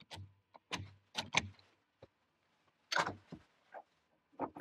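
Scattered sharp metallic clicks and knocks, about ten in all with short gaps of quiet, as the steel shaft is handled in the steel machine vise on the mill table.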